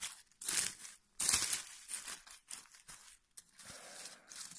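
Dry pine needles, cones and twigs rustling and crackling under a hand brushing through the forest-floor litter, in several short bursts, the loudest just over a second in.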